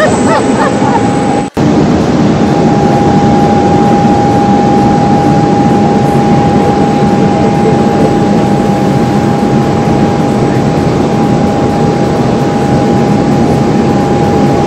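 Jet airliner turbine noise at the boarding stairs: a loud, steady rush with one constant high whine, starting after a brief break about a second and a half in.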